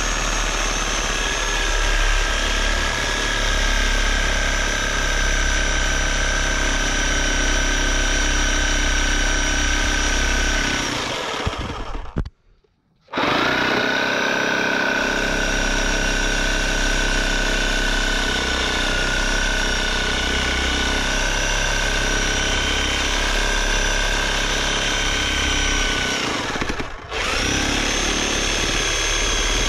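Chicago Electric reciprocating saw running, its blade cutting down through wooden pallet boards with a steady, high motor whine. It stops about 12 seconds in and dips again briefly near 27 seconds, spinning back up each time.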